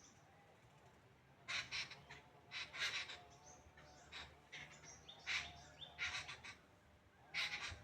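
Birds giving short, harsh calls, about six in the space of a few seconds.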